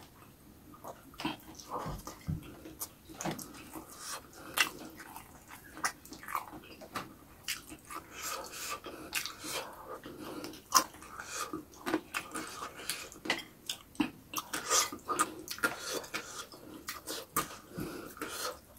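A person eating by hand: wet chewing and lip smacks with many irregular sharp clicks, and fingers working through rice.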